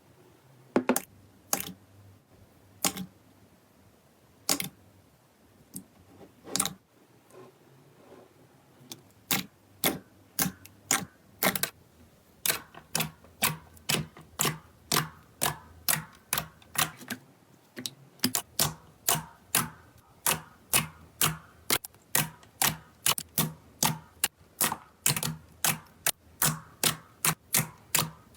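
Slime being squeezed and poked, making sharp popping clicks. They come only now and then at first, then about ten seconds in settle into a steady run of roughly two a second.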